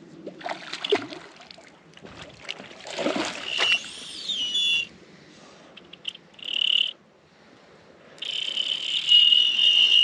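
Fly reel's drag whining as a hooked trout pulls line off. There is a short run about three and a half seconds in, whose pitch rises and falls, then a brief one near seven seconds, then a long steady run from about eight seconds on. Brief rustling handling noises come before it.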